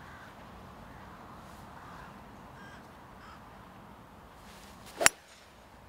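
A driver striking a golf ball off the tee: one sharp crack about five seconds in, the loudest sound by far.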